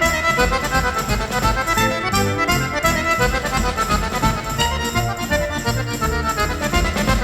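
Accordion playing a tune, with a steady rhythmic pulse in the low notes under the melody.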